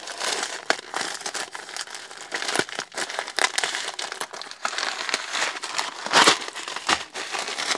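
Plastic packaging crinkling and rustling as a parcel is handled and pulled open by hand, with many small crackles and one louder rustle about six seconds in.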